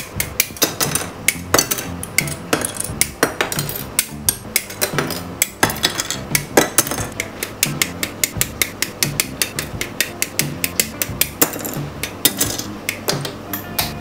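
Hobby nippers snipping plastic model-kit parts off their runners, a rapid run of sharp clicks several a second, over background music.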